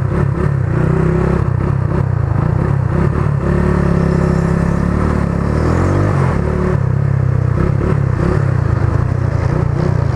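Rusi Mojo 200 motorcycle engine running steadily under way, heard from the rider's seat with wind noise over the microphone. Its pitch climbs and drops back around the middle.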